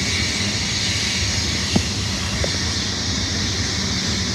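Coal train's freight cars rolling past: a steady rumble and rail hiss, with two sharp clicks a little before the middle.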